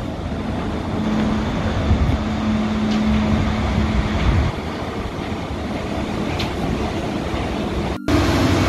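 City traffic noise from vehicles around a station, with a steady low hum for a few seconds. Near the end the sound cuts out for a moment and a steadier engine drone follows.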